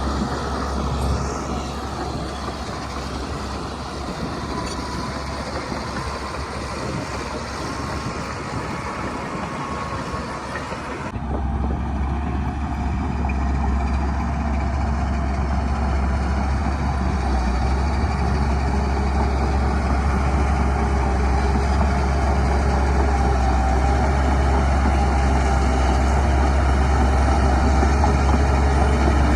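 Heavy diesel engines of earthmoving machinery running with a deep, steady drone. The sound changes abruptly about eleven seconds in and then grows slightly louder.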